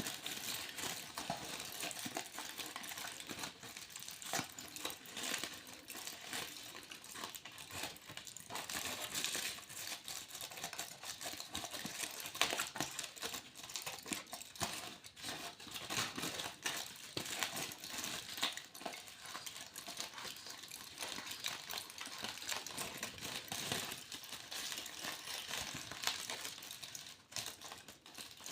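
Aluminium foil crinkled and crumpled by hand, a continuous crackle of quick sharp clicks.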